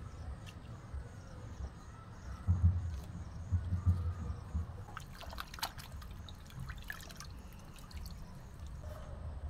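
Water trickling and dripping as a head of lettuce is washed by hand, with scattered small splashes and clicks midway through. There are a couple of dull low thumps a little earlier.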